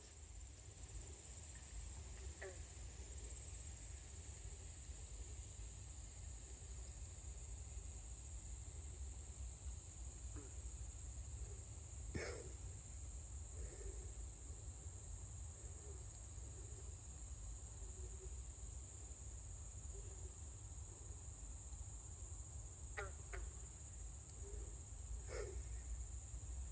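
American bullfrog giving a few short, deep croaks, the loudest about halfway through and near the end, over a steady high trill of insects.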